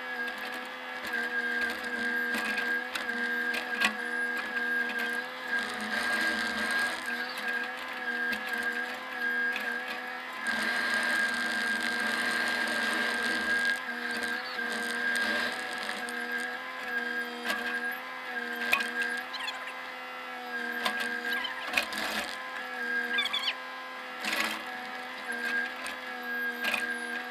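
Bobcat compact excavator's diesel engine running steadily with a high whine, heard from the operator's seat as it travels and digs, louder for a few seconds about ten seconds in. A few sharp knocks near the end.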